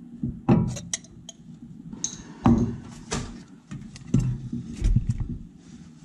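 Tartar sauce squeezed from a plastic squeeze bottle and scraped out with a spoon into a glass bowl, giving several short knocks and scrapes at irregular intervals.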